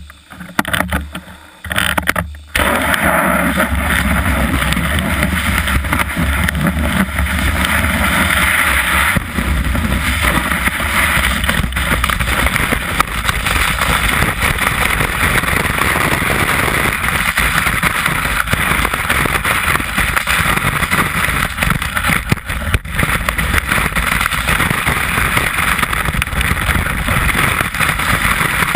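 Snowboard sliding and carving over groomed snow, heard from a camera mounted on the board: a loud, steady scraping rush of snow mixed with wind noise, broken by a few short drop-outs in the first couple of seconds.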